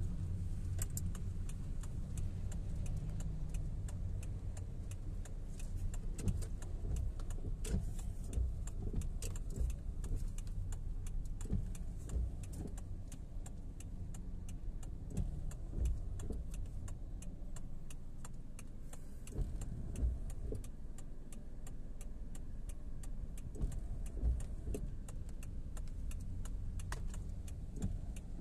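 Inside a car's cabin: the steady low rumble of the car driving slowly, with raindrops ticking irregularly on the roof and windows.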